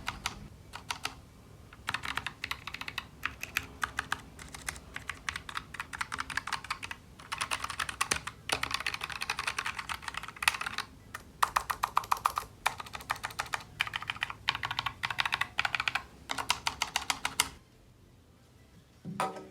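Typing on a Keychron K1 version 3 low-profile mechanical keyboard with red linear switches: rapid runs of key clicks, separated by short pauses, stopping a couple of seconds before the end.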